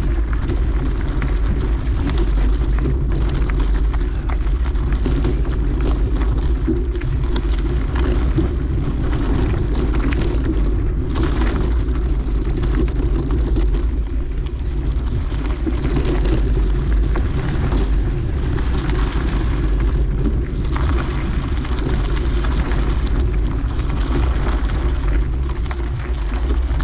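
Steady low rumble of wind buffeting a moving camera microphone, mixed with bike tyres rolling over a dirt trail.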